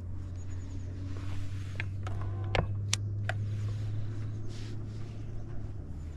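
Boat motor running with a steady low hum, and a few sharp clicks about two and a half to three and a half seconds in.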